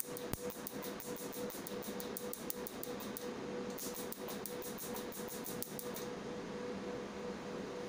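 Q-switched Nd:YAG tattoo-removal laser handpiece firing rapid, evenly spaced snapping pulses against skin, over a steady machine hum. The pulses pause briefly a little past three seconds in, resume, and stop about six seconds in.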